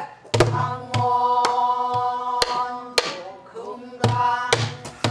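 Pansori-style singing of a slow, held dan-ga line, its notes sustained with little wavering. Under it a sori-buk barrel drum keeps the rhythm: sharp stick strokes about every half second, with a few deeper hand strokes on the drumhead.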